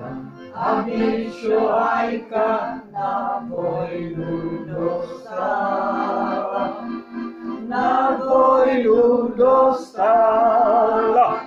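Elderly man singing a Moravian folk song in dialect while playing a piano accordion, his voice carrying the melody over sustained accordion chords.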